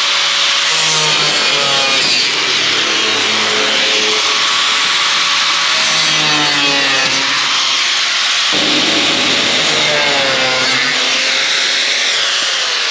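Two angle grinders cutting aluminium alloy sheet: a loud, continuous grinding hiss with the motors' whines sliding up and down in pitch as the discs bite into the metal and ease off, one winding down near the end.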